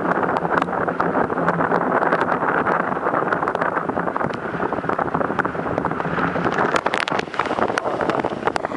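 Wind buffeting the microphone over the rush and splash of water along the hulls of a Hurricane 5.9 sport catamaran under sail, with scattered sharp ticks that come thicker near the end.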